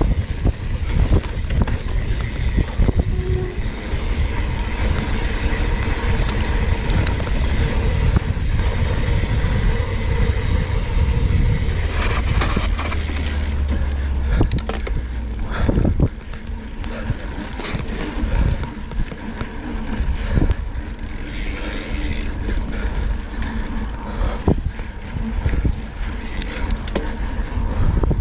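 Cannondale Scalpel-Si mountain bike riding fast down a dirt trail: wind rumbling on the microphone, tyres running over dirt, and sharp rattles and knocks from the bike over bumps. The wind rumble eases a little past halfway.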